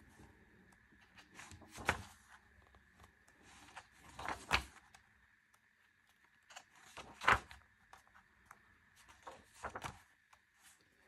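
Pages of a photo book being turned by hand: a few separate paper rustles and flips, about four in all, with quiet handling between them. A faint steady high whine sits underneath.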